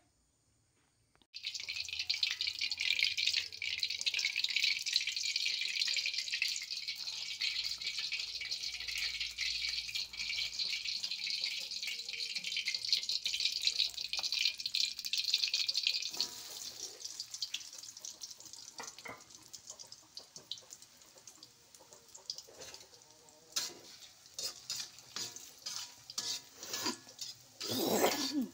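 Food sizzling steadily in hot oil in an aluminium wok, starting suddenly about a second in and dying down about halfway through. In the second half a metal spatula clicks and scrapes against the wok as the frying pieces are stirred, loudest near the end.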